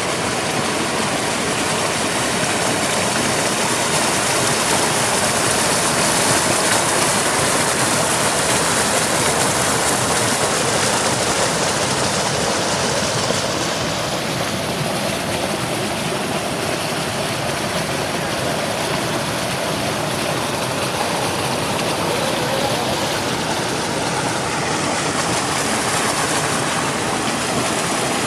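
Waterfall's steady rush of falling water, a dense unbroken roar; it turns a little softer and duller about halfway through.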